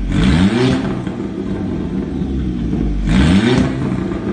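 Volkswagen Beetle Turbo's turbocharged four-cylinder engine through an Akrapovic exhaust, stationary at idle and blipped twice: a quick rev up and back down just after the start and again about three seconds in, settling back to idle in between.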